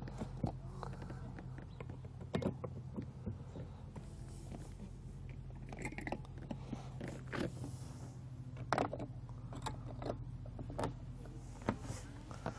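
Plastic valve caps being twisted shut on an inflatable kayak's recessed air valves: scattered light clicks and knocks with handling rubs, over a steady low hum.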